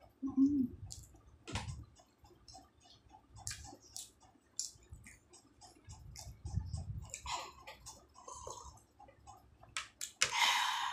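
Close-up chewing of a crisp fried samosa: irregular small crunches and wet mouth clicks. A short louder breathy rush comes near the end.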